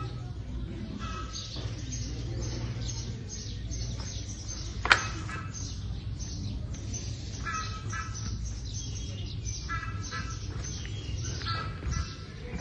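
Birds chirping in short repeated bursts over a steady low hum, with one sharp click about five seconds in.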